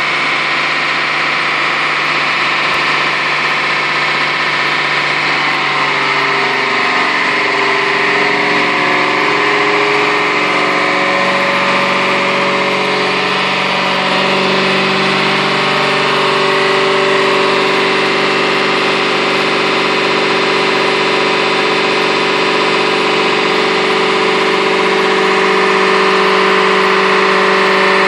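Dodge Challenger SRT-8's V8 engine running steadily at low revs, close to idle, on a chassis dyno. Its pitch shifts a little about six to fourteen seconds in, then holds steady.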